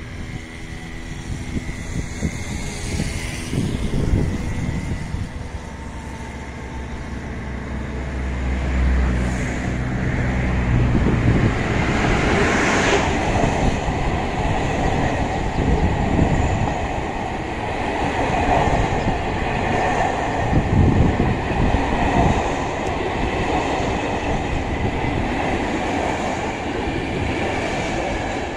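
Passenger train passing close below. A steady low hum from the locomotive swells during the first ten seconds or so as it approaches and passes. Then the coaches roll by in a continuous rumble, with their wheels clacking on the track.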